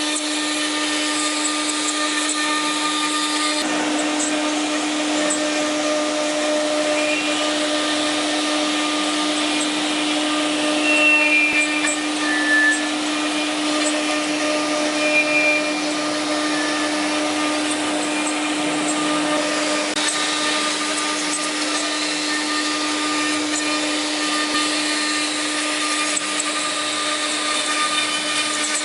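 Woodworking CNC router machining center running: its spindle gives a steady whine over the noise of the cutter working wood. A few brief, louder, higher squeals come around the middle.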